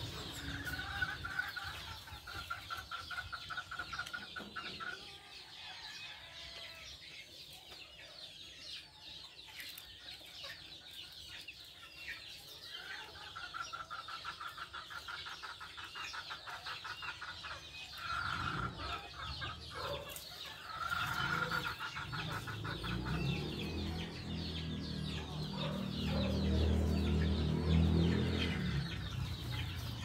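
Caged budgerigars chirping and chattering, a continuous stream of short high chirps. A rapid pulsed call repeats in stretches of a few seconds over it, and a low rumble comes in near the end.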